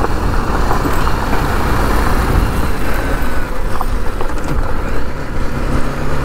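Adventure motorcycle engine running, with a low steady tone under a loud, even rush of noise.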